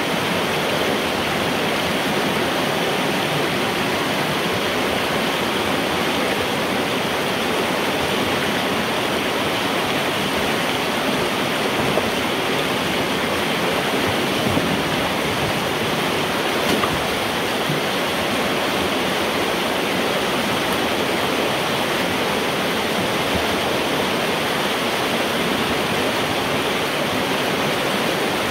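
Floodwater rushing through a culvert pipe, a steady loud rush heard from inside the pipe, as the water drains through the culvert where a beaver dam has blocked it.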